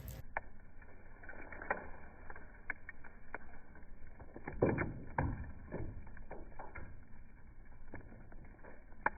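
Irregular sharp clicks and pops, with two dull knocks about halfway through.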